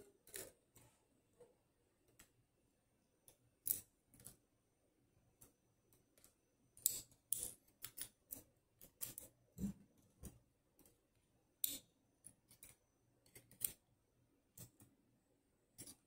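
Steel tweezers clicking against a Dom Plura lock cylinder and its small pins as the lock is taken apart: scattered, irregular, sharp little metallic clicks.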